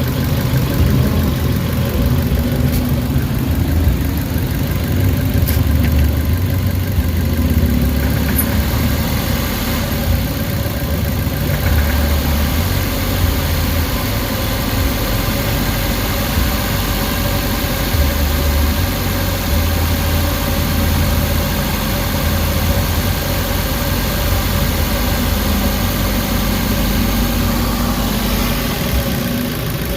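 Suzuki Carry engine idling steadily, with XADO engine treatment freshly added to the oil to cure knocking and a vibrating idle.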